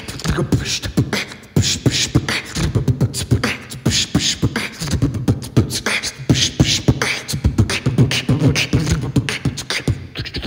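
Beatboxing into a microphone: a fast, steady rhythm of mouth-made drum sounds, low thumps and sharp clicks, with short pitched vocal sweeps between them, all produced by the voice alone.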